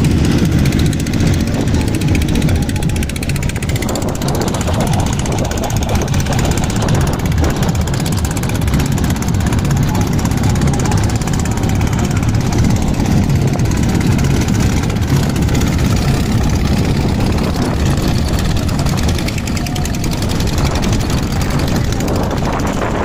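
A boat engine running steadily at an even, unchanging speed.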